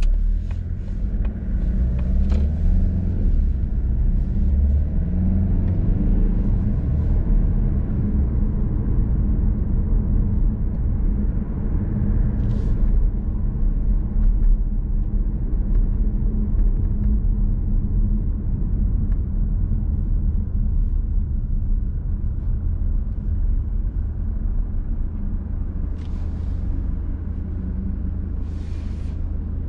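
Mazda CX-30's 1.8-litre four-cylinder clean diesel engine and road noise heard from inside the cabin while driving. The engine note climbs in the first few seconds as the car gets under way, then settles into a steady low rumble. A few brief hissing swells come from passing traffic.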